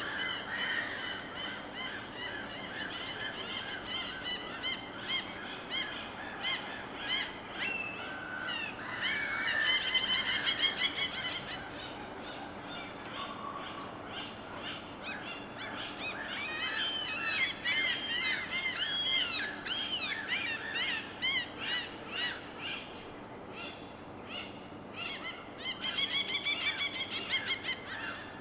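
Birds calling in quick series of chirping, rising-and-falling notes, with denser bursts about a third of the way in, past the middle, and near the end, over a steady wash of ocean water.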